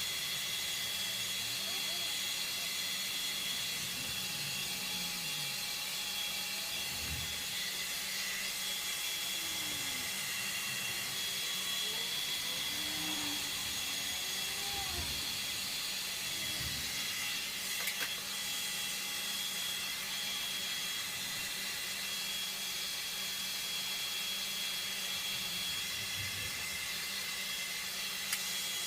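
Hand-held hair dryer blowing steadily during a blow-dry with a skeleton brush: an even airy hiss with a faint high whine, and one brief click about 18 seconds in.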